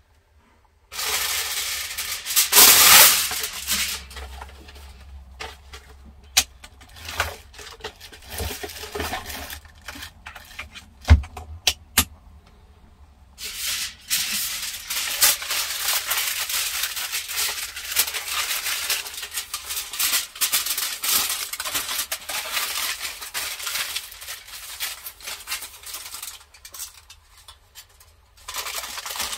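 Aluminium foil crinkling and tearing as it is pulled off and pressed over a skillet of cabbage, in long spiky stretches. There are a couple of sharp knocks of cookware about halfway through.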